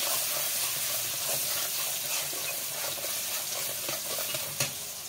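Chopped onions sizzling in hot oil in a metal karai, stirred with a metal spatula that scrapes and clicks against the pan, with one sharper clink near the end.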